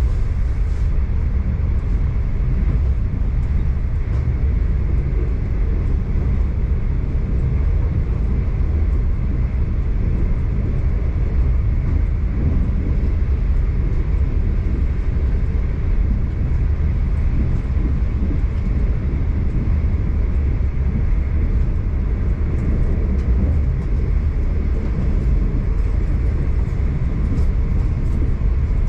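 V/Line regional passenger train running steadily, a constant low rumble of the train in motion with a fainter rushing hiss above it.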